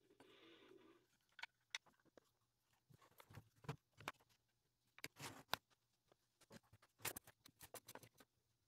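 Faint clicks, taps and knocks of small wooden pieces being handled, with a short rubbing sound in the first second, then a quick run of clicks near the end as one-handed bar clamps are set and tightened on the glued box.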